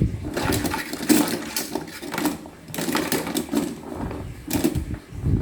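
Consul Facilite 12 kg washing machine on its spin cycle, rattling and knocking irregularly as it spins.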